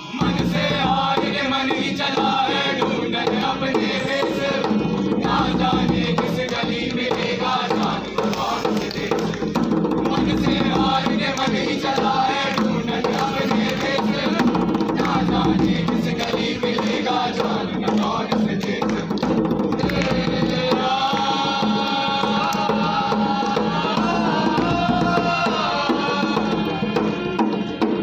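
Live drumming on hand drums, with a group of performers chanting and singing in unison. The voices come forward clearly about three-quarters of the way through.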